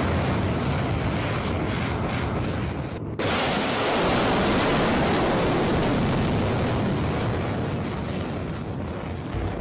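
Missile rocket motor firing, a dense rushing roar. About three seconds in it cuts off abruptly and a fresh roar from a missile launching off a rail car starts at once, then slowly fades.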